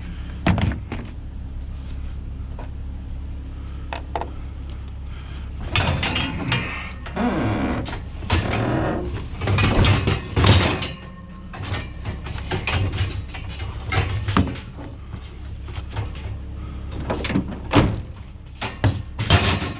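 Scrap items being moved and handled: irregular knocks, clanks and rattles, busiest in the middle, over a steady low hum.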